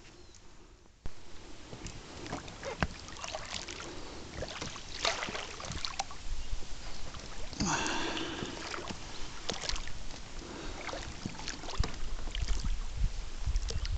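Inflatable boat being rowed: scattered oar splashes and knocks against the hull, with a short creak about eight seconds in.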